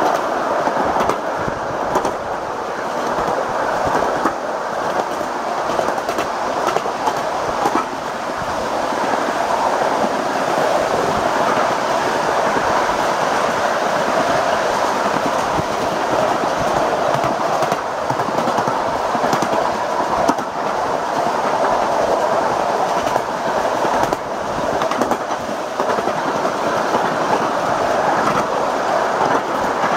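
Ride-on miniature train on 7.5-inch gauge track rolling steadily along, heard from aboard a riding car: a continuous rumble of small steel wheels on the rails with a constant patter of clicks and clatter.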